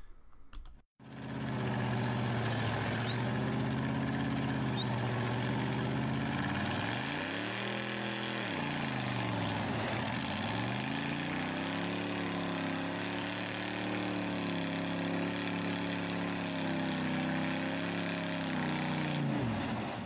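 Jeep engine revving hard as it spins its tyres in deep mud, stuck and throwing mud without getting free. The revs swing down and back up about halfway through, then hold high until they cut off near the end.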